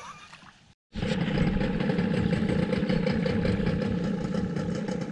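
A boat engine idling steadily close by, with a fast even pulse. It begins abruptly about a second in, after a brief quieter stretch.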